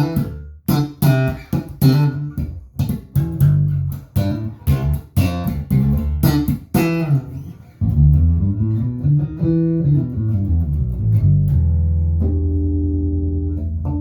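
Harley Benton JJ-55 OP electric bass played through a small amp, with the tone set to bass full up and treble centred. It opens with a quick run of sharply plucked notes, and from about eight seconds in it plays longer sustained notes, ending on a held low note with higher notes ringing above it.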